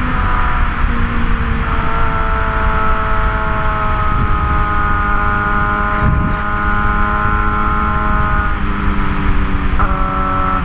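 Straight-piped Suzuki GSX-R750 inline-four running under way, its exhaust note holding fairly steady and drifting slowly down in pitch, then rising quickly near the end. Heavy wind rumble on the microphone rides under the engine.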